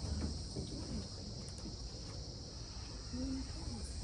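Steady high-pitched insect chorus, like crickets or cicadas, over a low rumble.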